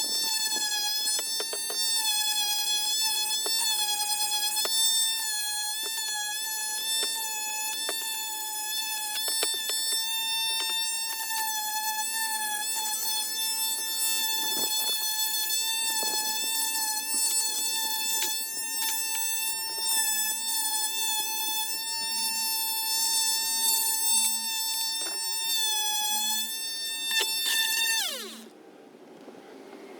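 Electric sander running steadily on a painted wooden table leg, a high whine with light scraping ticks as the pad works the corners. Near the end it is switched off and winds down, its pitch sliding away.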